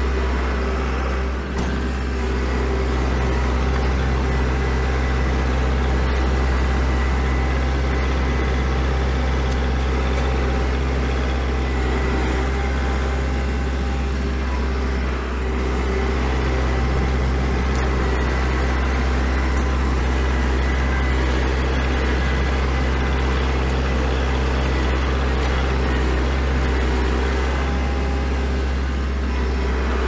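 Kubota L4701 compact tractor's four-cylinder diesel engine running steadily while the tractor pushes snow.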